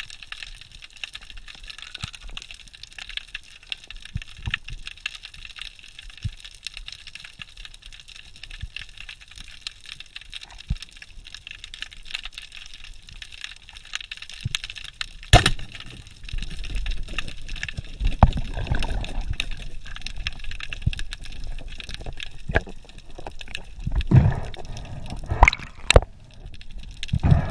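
Water sloshing and splashing, with scattered sharp clicks and knocks. The water noise grows louder from about halfway through, with several heavier knocks near the end.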